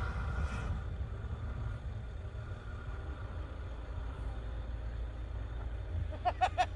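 Distant SUV engine running as it ploughs through deep snow, heard faintly over a steady low rumble.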